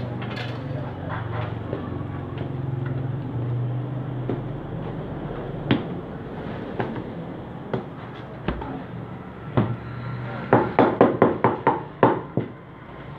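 A quick run of about seven sharp slaps near the end, from roti dough being slapped flat by hand at a tandoor. Before that, a low steady hum and a few scattered light knocks.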